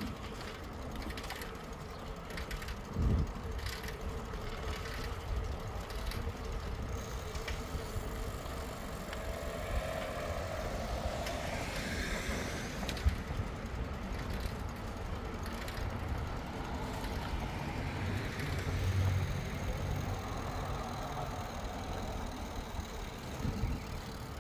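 Bicycle being ridden along a paved bike path: a steady low rumble of tyres and wind on the microphone, with a thump about three seconds in and a sharp click near the middle.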